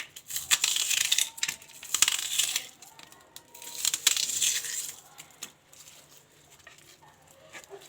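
Sliced onion rings being laid into a clay tagine: crisp rustles and light clinks against the earthenware in three short spells over the first five seconds, then only faint handling.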